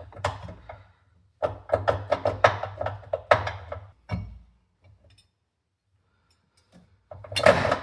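Irregular metallic knocks and clanks of tools on a stuck bolt at the lower engine mount bracket. A pause follows, then one loud clank near the end as the bolt comes free.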